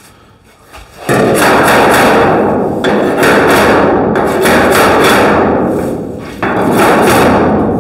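Pneumatic air chisel hammering rapidly against the tack welds of a sheet-metal panel to break the skin loose. It runs in three long bursts, starting about a second in, with short breaks about three seconds and six and a half seconds in.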